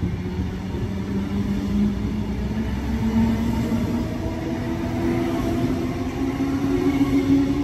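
Sydney Trains double-deck electric suburban train pulling out along the platform, its traction motors whining in tones that climb steadily in pitch as it gathers speed, over the rumble of the wheels.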